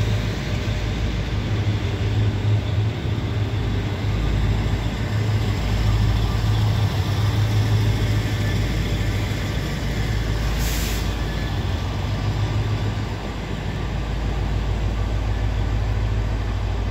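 Diesel engines of a Trenitalia Minuetto diesel multiple unit running with a steady low drone as the train moves off along the platform. A brief high hiss comes about ten seconds in.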